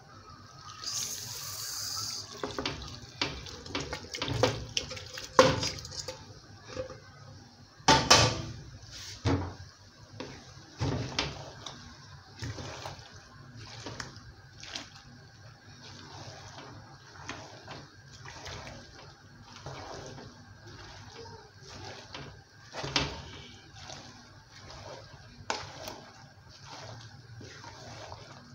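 Stock with pieces of meat and fish poured from one pot into a pot of chopped leafy vegetables, with knocks of pot and spoon as it lands. Then a wooden spoon stirs the soup in steady strokes, about one a second.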